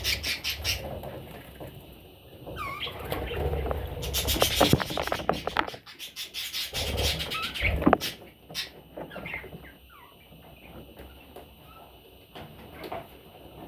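Budgerigars in a nest box: short chirps and squeaky calls among rapid scratching and rustling, louder in the first half and fading to faint scattered chirps.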